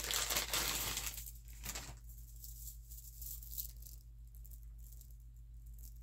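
Strands of dalmatian jasper stone beads rattling and clicking against each other as they are handled, busy for about two seconds and then only a few faint clicks.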